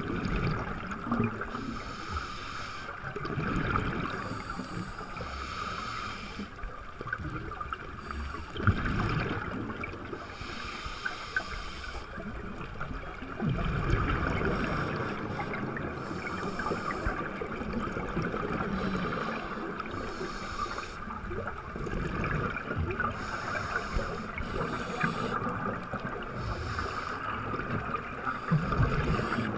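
Scuba breathing heard underwater through a camera housing: a diver's regulator releasing bursts of exhaled bubbles every few seconds over a steady underwater hiss, with irregular low rumbles of water movement.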